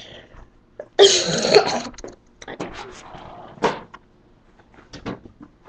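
A person coughing: one loud, breathy cough about a second in, followed by several short, fainter sounds.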